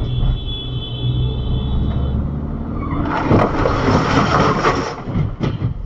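Dashcam audio from a heavy vehicle's cab: the engine runs steadily with a thin high whine. About three seconds in, a loud rushing hiss lasts about two seconds as a crash happens on the road ahead, and two sharp knocks follow near the end.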